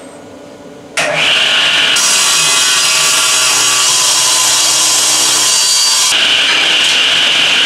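Table saw switching on about a second in and cutting through a wood board, with a rougher, fuller sound from about two to six seconds in, then spinning free with a steady whine. The blade is blunt.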